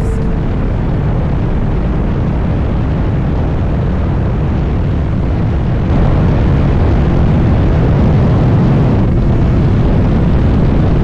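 Motorcycle engine and exhaust running, a loud, dense low rumble that gets louder about six seconds in.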